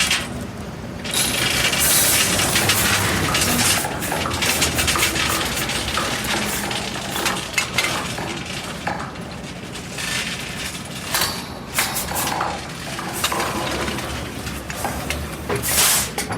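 Oil truck rig ambience: a heavy engine running steadily under repeated sharp metallic knocks and clanks, with short bursts of hiss, the loudest near the end.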